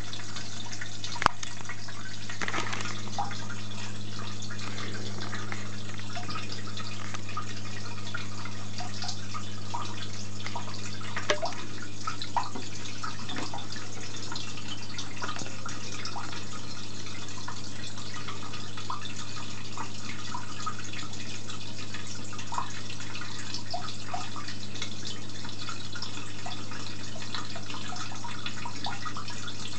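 Aquarium water trickling and dripping in many small irregular drops over a steady low hum, typical of a running aquarium filter and pump. A single sharp click about a second in.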